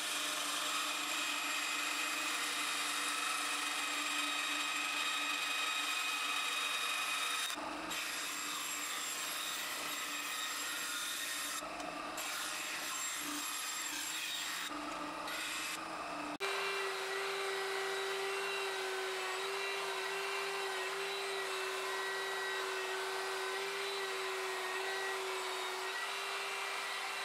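A bandsaw cutting thin 4 mm plywood, a steady run of blade noise with a few short breaks. About sixteen seconds in it gives way to a 3×18-inch belt sander running with a steady mid-pitched hum as the plywood edge is sanded to the line.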